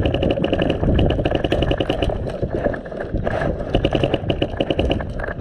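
Airsoft guns firing full-auto, a steady rapid rattle of about ten shots a second that lets up briefly a little past the middle.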